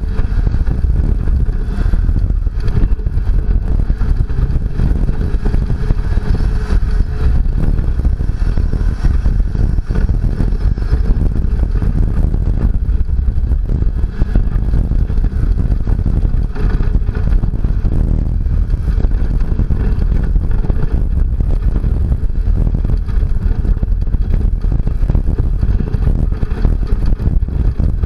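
Second-generation Toyota Tacoma prerunner driving over a rough dirt trail: steady engine and tyre rumble, heavy in the lows, with constant rattling and clatter as the truck bounces over the bumps.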